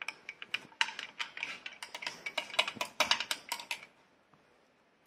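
Containers being handled for a rinse: a quick, irregular run of light clicks and taps that stops about four seconds in.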